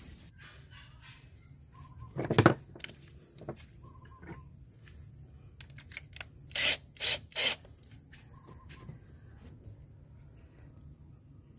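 Insects trilling steadily in the background as a high, faintly pulsing tone. Over it are scattered handling knocks and rubs: a louder knock about two seconds in, and three short scraping noises about half a second apart around the middle.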